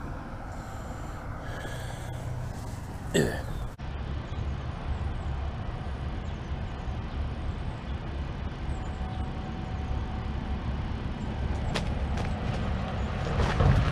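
Steady low rumble of road traffic from a highway bridge, with a few sharp clicks near the end.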